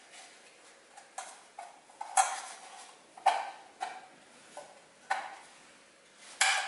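Pressed-steel A-post repair panel sections clinking and knocking together as they are handled and fitted. There are about eight irregular metallic knocks with short ringing. The loudest come about two seconds in and near the end.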